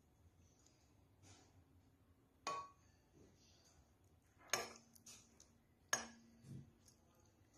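Metal utensil striking the rim of an aluminium cooking pot: three sharp clinks, about 2.5, 4.5 and 6 seconds in, each with a short ring.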